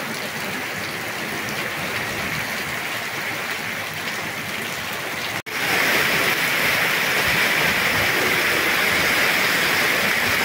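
Heavy rain falling on a paved street, a steady hiss of rain. About halfway through it drops out for an instant and comes back louder.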